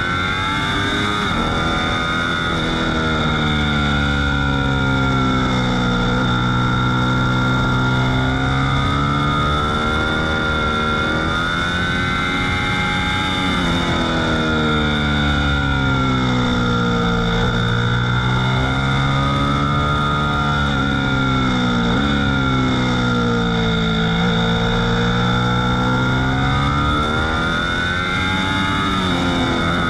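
Ducati V4 S motorcycle's V4 engine heard on board at track speed. Its pitch repeatedly drops as the bike slows for corners and climbs again under hard acceleration, several times over.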